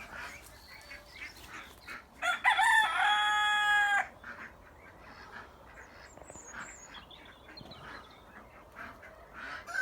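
A rooster crowing once, a loud call about two seconds in that rises and then holds steady for over a second before cutting off, with quieter bird calls around it.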